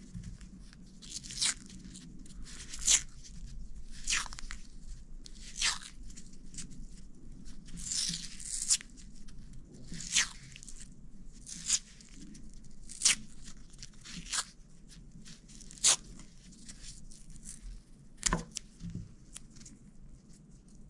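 Electrical tape being pulled off the roll and wound around a wire splice. It comes as a series of short rasping peels at irregular intervals of about a second or so, with a longer double peel about eight seconds in.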